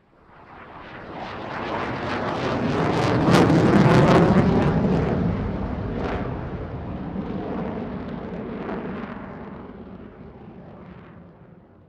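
Fixed-wing airplane passing by: a loud engine and jet rush that swells up from silence, peaks about four seconds in, then slowly fades away.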